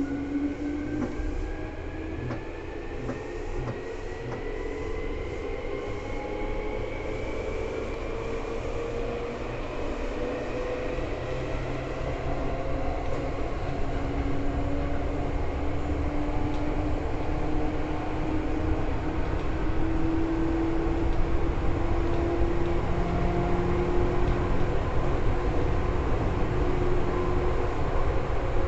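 Seibu 2000 series electric train running, heard from inside the car. Whining tones from the traction motors and gearing rise in pitch while the running noise of wheels on rail grows steadily louder as the train accelerates.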